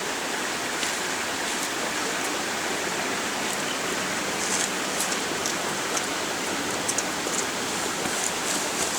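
A creek running, a steady rush of flowing water.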